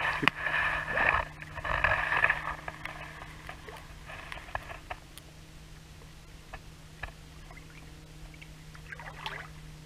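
Water splashing and sloshing as a large wels catfish is let go into a river, strongest over the first two seconds or so, then dying down to a few small splashes and drips as the fish swims away.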